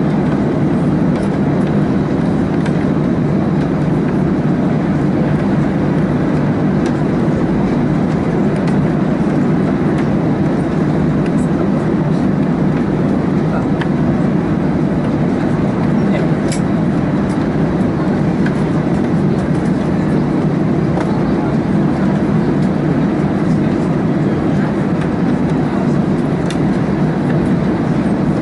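Airbus A320 cabin noise while taxiing: the jet engines at low thrust and the airframe make a steady, unchanging low drone heard through the fuselage.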